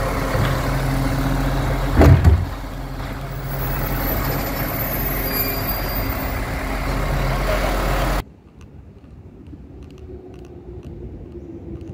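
Side-loading recycling truck running while its hydraulic arm empties a wheelie bin: a steady engine and hydraulic drone, with a loud bang about two seconds in as the bin is tipped into the hopper. About eight seconds in the sound drops suddenly to a much quieter, distant street with faint knocks.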